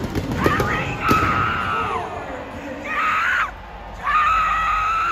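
A person near the microphone screaming in three long, high-pitched shrieks over arena crowd noise. Deep booms of stage pyrotechnics sound in the first half-second.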